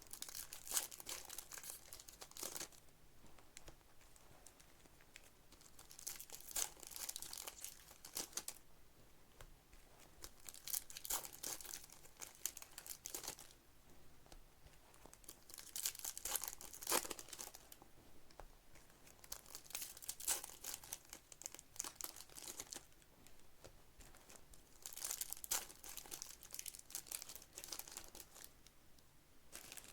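Trading card pack wrappers crinkling and tearing as packs are opened by hand, in about six bursts a few seconds apart.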